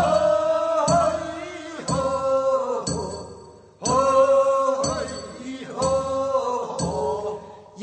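Korean funeral bier song (sangyeo-sori, a mourning chant of the bier carriers) from Gyeongsang Province: voices singing long, drawn-out phrases over a sharp beat struck about once a second. The singing fades out briefly a little before the middle, then picks up again.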